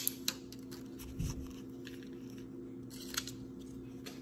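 Faint plastic clicks and handling of the round plastic package of a Mio insulin infusion set being opened, with a soft thump about a second in, over a steady low hum.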